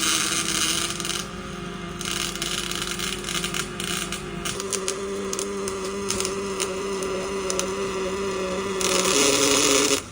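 Robotic arc welding: a steady electrical buzz under a bright hiss, with sharp crackles and spatter clicks. The hiss switches on and off abruptly a few times.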